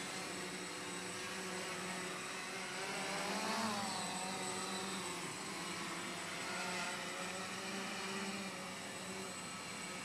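A small electric drone's motors and propellers humming steadily in flight, several whining tones that waver in pitch, rising and dipping about three to four seconds in as the throttle changes.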